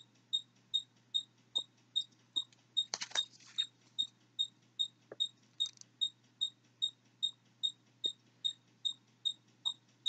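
A regular, high-pitched chirp repeating about two and a half times a second. About three seconds in there is a brief rustle of something being handled, and a few faint ticks fall in among the chirps.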